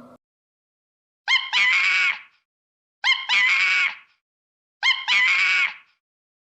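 An animal call, the same harsh, high-pitched call repeated three times about every second and a half to two seconds, each lasting about a second with silence between.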